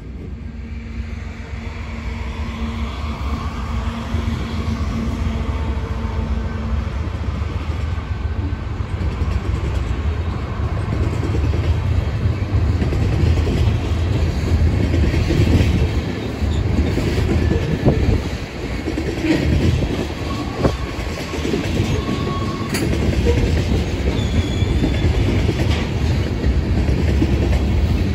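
Freight train on a mountain grade, its rumble building over the first dozen seconds as it draws near, then rolling past with wheel clatter. Short high-pitched wheel squeals sound now and then in the second half.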